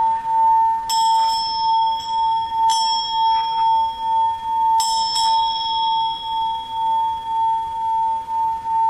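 A Tibetan singing bowl sounding one sustained tone that pulses slowly and evenly. Higher-pitched bells are struck over it about four times, including a quick double strike about five seconds in, each ringing on.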